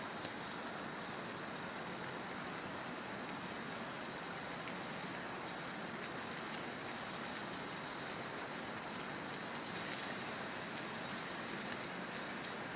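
Steady rushing outdoor noise from the campfire and its surroundings, with two sharp pops from burning wood, one right at the start and one near the end.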